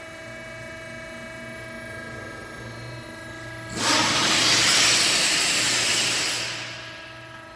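Hydraulic busbar processing machine running with a steady hum made of several fixed tones. About four seconds in a loud hiss starts suddenly, holds for a couple of seconds, then fades away.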